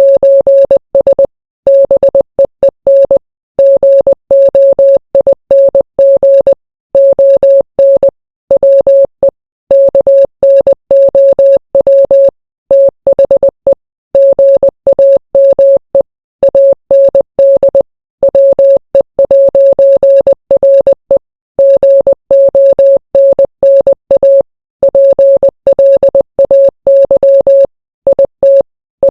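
Morse code sent as a single steady mid-pitched beep, keyed rapidly on and off in dots and dashes, with short pauses between groups.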